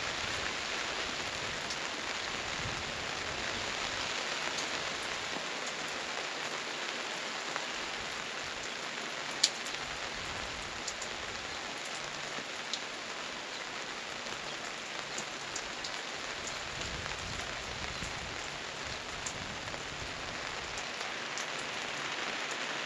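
Gentle rain falling steadily, with scattered individual drops ticking through the patter and one sharper drop about nine seconds in.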